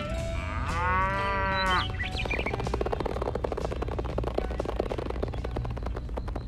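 A cow moos once, about a second and a half long, followed by a fast, steady ticking.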